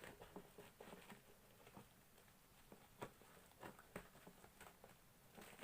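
Faint, scattered clicks and rustles of a cardboard package being handled and opened by hand.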